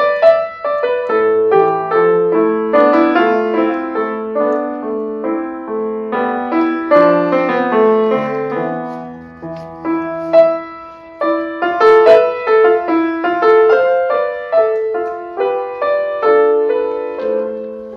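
Grand piano played live: a short, gentle beginner-to-intermediate teaching piece in a steady run of single notes over a light accompaniment, with a softer passage about halfway through.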